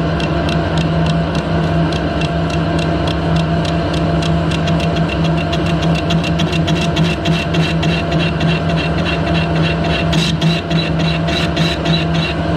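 Harrison lathe turning a rough casting with a carbide cutter. The spindle and motor run with a steady hum, and a regular tick comes about four to five times a second as the tool strikes the casting's corners on each turn in an interrupted cut. The ticks grow sharper near the end.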